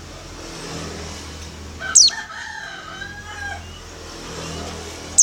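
Female pleci (white-eye) giving a short, sharp call that falls steeply from very high pitch, twice, about two and five seconds in; this is the female's call to attract a male. Right after the first call a rooster crows in the background.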